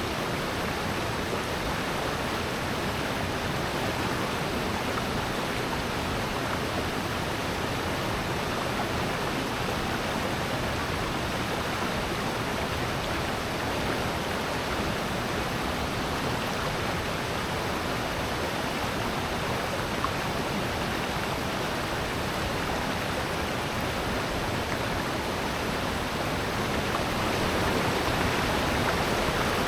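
Steady rushing of a mountain stream and waterfall in a rocky valley, an even wash of water noise that swells slightly near the end.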